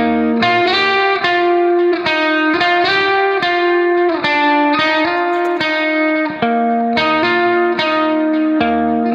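Instrumental background music: a melody of quickly picked notes over a held lower tone.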